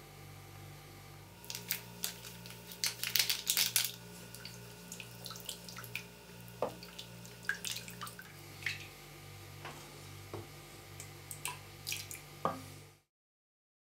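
A wooden spoon stirring in a metal saucepan: light clicks and knocks that are busiest a few seconds in, then sparser, over a steady low hum. Near the end a thin stream of liquid trickles into the pot.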